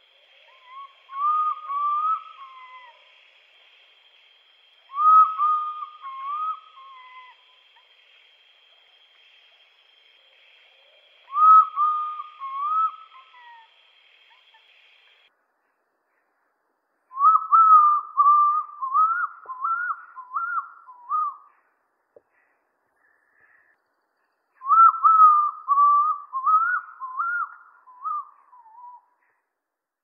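Oriental bay owl calling: a series of eerie, wavering whistled phrases, each rising and falling in pitch. Three shorter phrases come a few seconds apart, then two longer, more broken phrases, over a faint high hiss that stops about halfway through.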